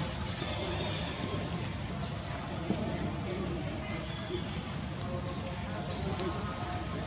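Steady, high-pitched chorus of insects with a slight regular pulse, over a low background rumble.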